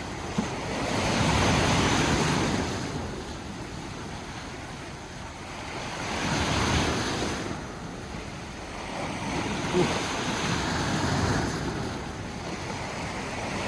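Sea waves breaking and washing on the shore, swelling and fading about every four to five seconds, with wind buffeting the microphone.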